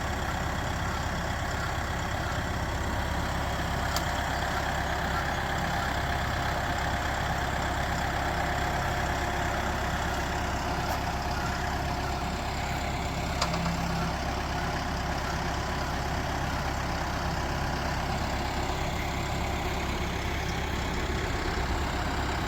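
Tractor engine running steadily under light load while its front loader carries a roughly 1,000-pound sawmill hung by chains from the bucket. A couple of faint clicks break in, one about four seconds in and one past the middle.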